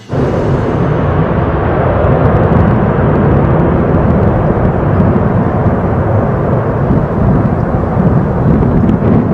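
A loud, steady roar of a flying engine that cuts in suddenly at the start and holds unbroken throughout.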